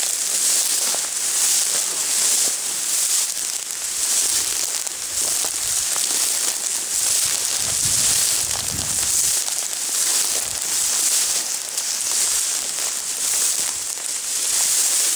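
Tall dry grass swishing and crackling against the legs of a person walking through it, swelling with each stride a little under once a second. A brief low rumble comes about eight seconds in.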